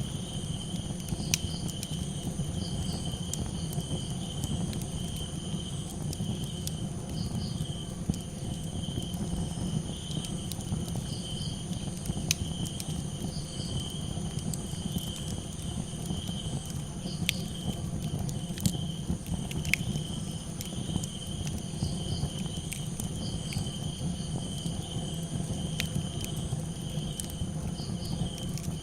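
Campfire crackling with scattered sharp pops over a steady low rush, while crickets chirp in an unbroken pulsing chorus with a continuous high insect trill above it.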